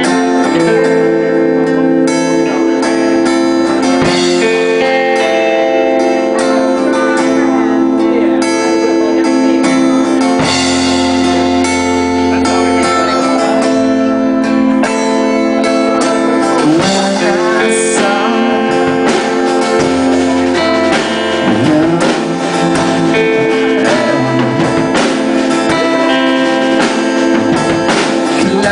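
Live band playing a song, led by guitar.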